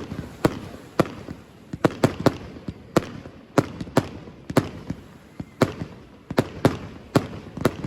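Fireworks display: an irregular rapid series of sharp bangs from bursting fireworks, about two to three a second.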